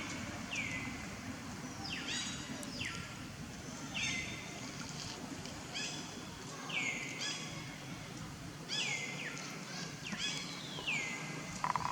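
An animal giving repeated high-pitched calls, each sliding down in pitch, about every second or two, with a few short chirps between them.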